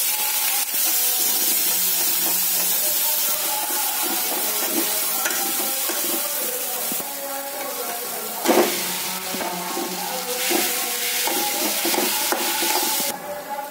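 Chopped green chillies and spices sizzling in hot oil in a steel kadhai while a metal spoon stirs them: the tadka for the potato filling. There is a sharp clatter about two-thirds of the way through, and the sizzling stops abruptly near the end.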